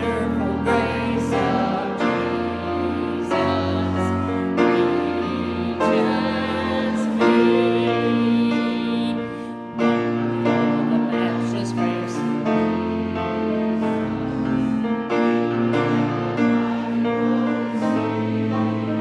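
Church music: a hymn on piano with voices singing along, held chords over a moving bass line.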